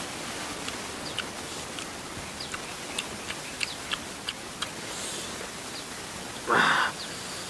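Eating fried snails: light, scattered clicks of a toothpick and snail shells over a steady hiss, with a short, louder slurp near the end.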